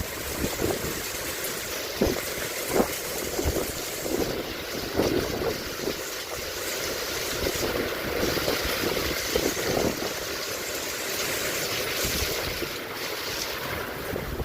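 Storm with pea-size hail: a steady rush of wind and falling precipitation, broken by many scattered sharp taps.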